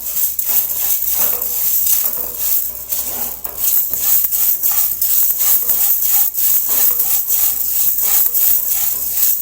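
Horse gram being dry-roasted in a pan and stirred with a spatula: the seeds rattle and scrape against the metal in repeated strokes, a few a second, over a steady hiss.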